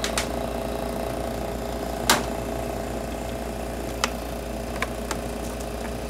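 1953 Carrier Silhouette room air conditioner running with a steady hum from its semi-hermetic compressor, which is building head pressure as the unit starts to cool. Several short sharp ticks sound over it, the loudest about two seconds in.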